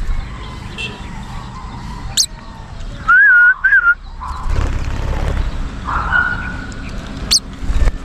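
A few sharp, high lovebird chirps, and a loud two-note whistle about three seconds in.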